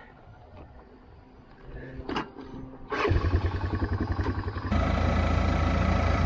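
Old four-wheeler's engine starting about halfway through and running with a fast, even pulse, then a steadier, louder engine running over it near the end.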